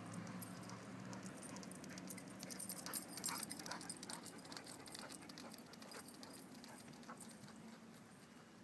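A bearded collie's quick pattering and clicking, densest about two to four seconds in, over the low hum of a vehicle's engine fading away.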